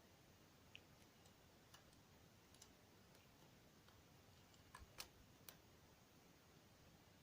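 Faint, scattered metallic clicks of a dimple pick probing the pins of a DOM ix10 KG euro cylinder lock, with a small cluster of sharper clicks about five seconds in.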